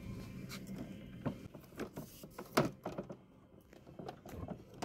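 Framed pictures knocking and clacking against one another as they are flipped through in a plastic bin: an uneven run of light knocks, the loudest about two and a half seconds in.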